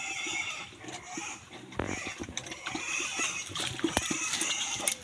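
Newborn piglets squealing in high, wavering cries, with scattered sharp clicks and knocks.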